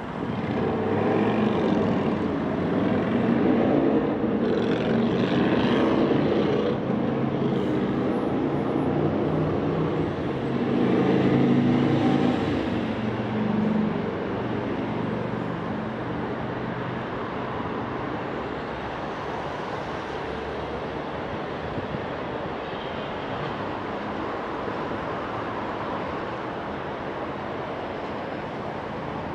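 Road traffic on the road bridge overhead and the nearby highway: a continuous rumble of passing vehicles. It swells twice in the first half as heavier vehicles pass, then settles to a steadier, lower drone.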